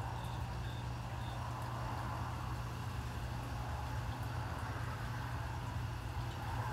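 Model-railroad diesel locomotive's engine sound, a steady low rumble, as the train creeps along the track.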